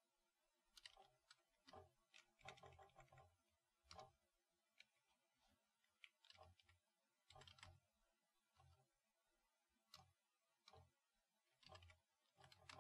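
Faint computer keyboard typing: irregular keystrokes in short runs with pauses between them.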